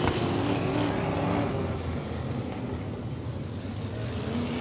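Several 360 sprint cars' V8 engines running at low revs under a caution, their notes overlapping in a steady mix.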